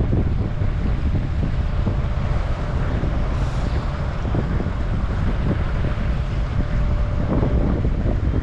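Wind blowing on a microphone: a steady low rumble that rises and falls in gusts.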